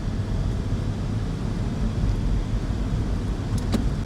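Steady low rumble of a car in slow traffic: engine and road noise heard from the car.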